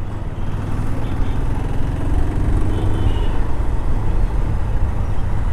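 Road vehicle on the move: a steady low rumble of engine and road noise, with a faint engine note that rises a little about two seconds in.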